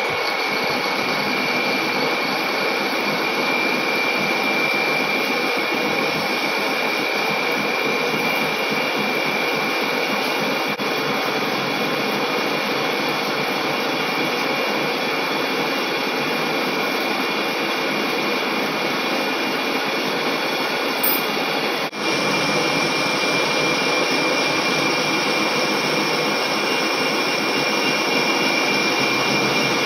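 Heavy lathe turning a 150 kg steel forging, the carbide tool taking a facing cut across the spinning disc: a steady grinding hiss of the cut and machine with a constant high-pitched whine over it.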